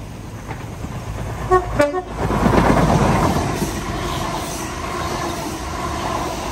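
Great Western Railway High Speed Train (Class 43 power car with Mk3 coaches) sounding a short two-note horn about a second and a half in. It then rushes past close by, with a loud rumble of wheels on rail that peaks just after the horn and carries on as the coaches go by.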